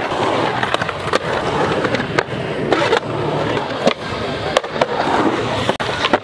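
Skateboard wheels rolling on concrete, broken by a string of sharp clacks as boards pop, strike edges and land.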